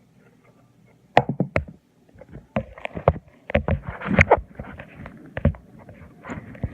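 Handling noise close to the microphone: a run of irregular knocks and clicks, starting about a second in, with some rustling between them.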